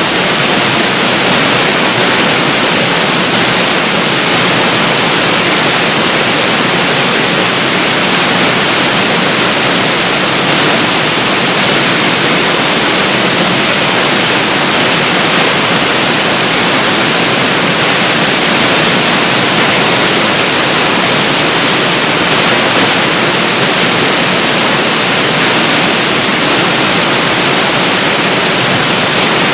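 Large artificial waterfall, water pouring and crashing steadily into the pool below.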